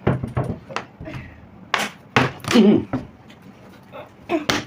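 A quick run of sharp knocks and thuds, like hard objects hitting a tabletop, with a short voice about two and a half seconds in.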